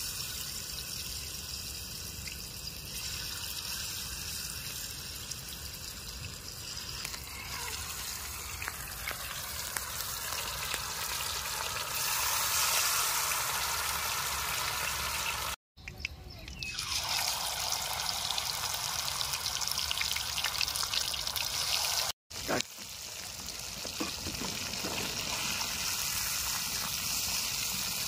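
Masala-coated Bombay duck (bombil) fish frying in hot oil in a pan: a steady sizzle that breaks off for a moment twice.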